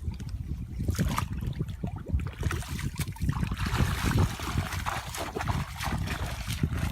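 Water splashing and trickling, over a low rumble with irregular knocks; the splashing is heaviest through the middle of the stretch.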